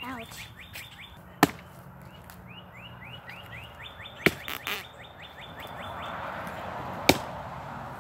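A hand axe chopping into a rotted log: three sharp single blows a few seconds apart, with a couple of lighter knocks just after the second. A rapid series of short, high rising chirps goes on behind the first half.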